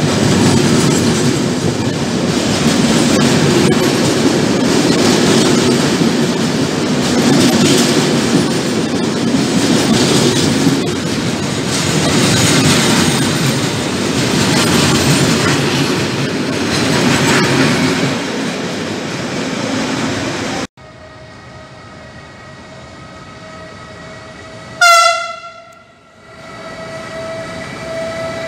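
Container wagons of an intermodal freight train rolling past close by, a loud, steady rolling noise. About 21 s in the sound cuts abruptly to a much quieter scene. About 25 s in an approaching ÖBB Siemens Vectron (Rh 1293) electric locomotive sounds one short horn blast, and the train's rolling noise then grows.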